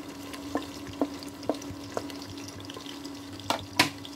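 Chopped onions sizzling as they fry in hot oil in an aluminium pressure cooker, stirred with a wooden spatula: light taps about every half second, then two louder knocks of the spatula against the pot near the end. A steady hum runs underneath.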